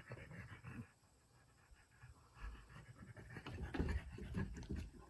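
French bulldog panting in short, rough, irregular breaths, falling quiet about a second in and starting again a second and a half later.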